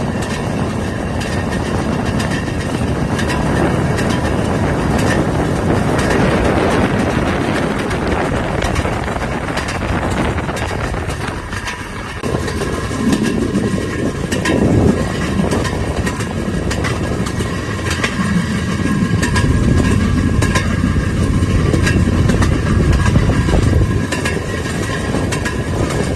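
Railroad speeder running along narrow gauge track: its engine and steel wheels on the rails make a steady running noise with faint clicks. The noise dips briefly about halfway through, then comes back heavier and lower.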